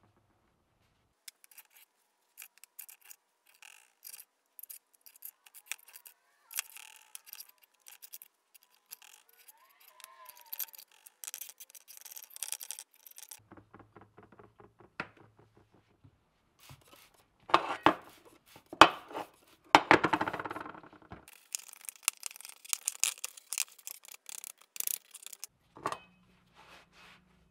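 Hand scraping and scrubbing of caked old grease and grime off a metal hoist gear housing: many short, rasping strokes, with a few louder strokes about two-thirds of the way through.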